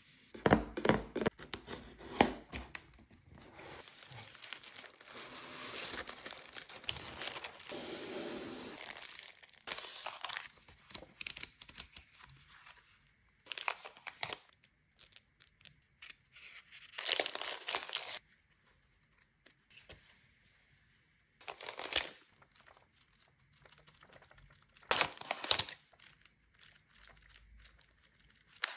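Close-up handling of stationery packaging: a few sharp taps on a cardboard mailer box, then a long stretch of paper and cardboard tearing and rustling. After that come short crinkles of clear plastic sleeves and paper pads being handled, a few seconds apart with quiet between.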